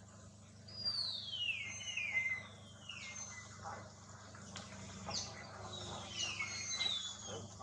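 A bird calling: clear whistled notes that each slide down in pitch, in two runs, one starting about a second in and another about five seconds in.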